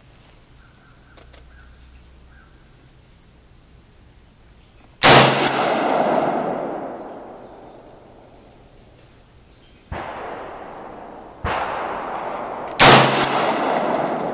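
AR-15 rifle firing two single shots about eight seconds apart, each a sharp loud report followed by a long echo fading over two to three seconds. Two fainter bangs sound between the two shots.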